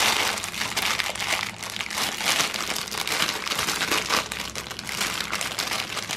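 Clear plastic wrapping around a set of chair caster wheels crinkling continuously as the wheels are handled.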